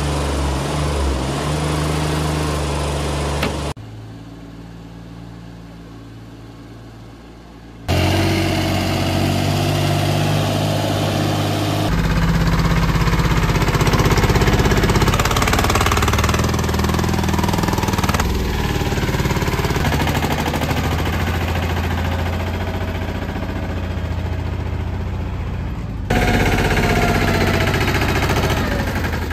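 Small diesel tractor engine running steadily while pulling a sand-loaded trolley, heard in several cut-together clips. A quieter stretch a few seconds in is followed by louder running again.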